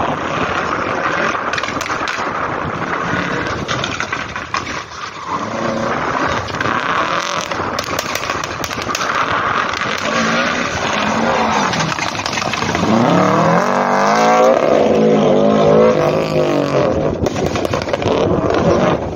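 Rally car engine revving hard on a slalom course, its pitch rising and falling with throttle and gear changes; it grows louder, with quick up-and-down swings, about two-thirds of the way through.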